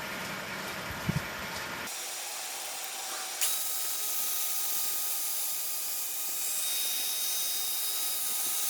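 Wood lathe running with a tool working the spinning wooden bowl: a steady hiss with a thin motor whine. The sound changes abruptly twice, about two seconds in and again about three and a half seconds in, and is brighter after the second change.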